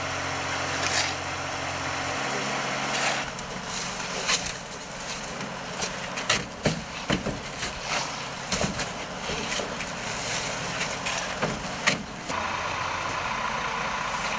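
A truck engine idling with a steady hum, then a run of irregular thuds and knocks as filled sandbags are tossed into a pickup truck bed. The steady engine noise returns near the end.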